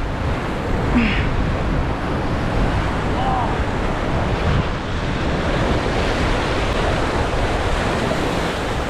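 Ocean waves and wind buffeting the microphone: a steady rushing noise.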